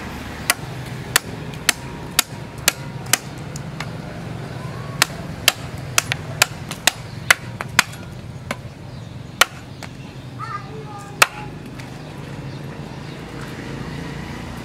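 A handmade knife blade, forged from a tractor plough disc, chopping through a spiny green plant stalk onto a wooden block. The sharp chops come about two a second in two runs with a short pause between, then slow to a few spaced strikes. A steady low hum runs underneath.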